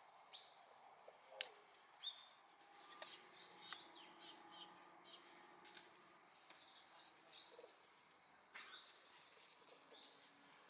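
Faint small birds chirping and calling in short high notes, some slurred up or down, with a few sharp clicks in between.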